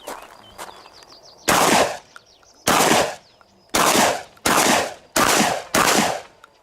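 Shotgun fired six times in quick succession, each blast about half a second to a second after the last, as a shooter works through a course of fire. Faint bird chirps come before the first shot.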